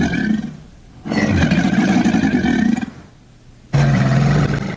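American alligator bellowing: a run of low, rough, drawn-out calls with short pauses between, one tailing off about half a second in, a longer one from about one to three seconds, and a shorter one near the end.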